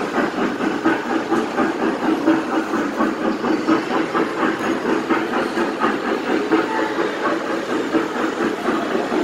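Mall kiddie train ride running, with a fast, even rhythmic clatter like a small steam train.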